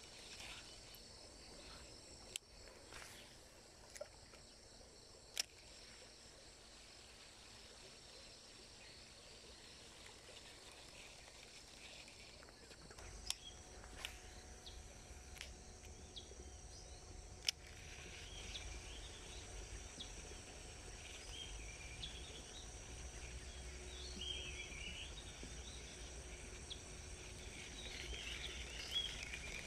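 Faint stream-side ambience: a steady high insect drone, with a few sharp clicks in the first half. About halfway in, a low rumble and irregular higher chirps join it.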